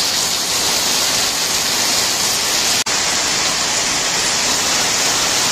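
Heavy tropical downpour: rain falling steadily as a dense, even hiss, with a momentary dropout nearly three seconds in.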